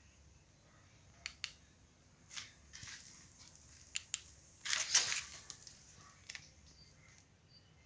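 Handling noises: scattered sharp clicks and short crinkling, scraping rustles. The loudest is a longer crinkle about five seconds in.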